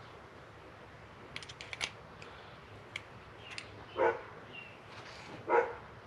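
Light clicks of small metal carburetor parts being handled over a metal tray, then two short, louder sounds, one about four seconds in and one near the end.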